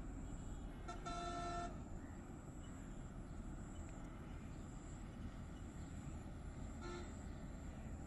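A distant horn toots once for under a second about a second in, and again briefly and more faintly near the end, over a steady outdoor background hiss.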